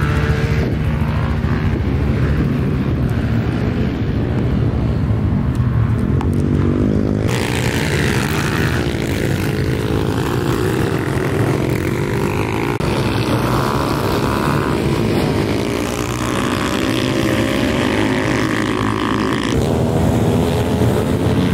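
Pit bike and dirt bike engines running and revving on the track, the sound changing abruptly a few times.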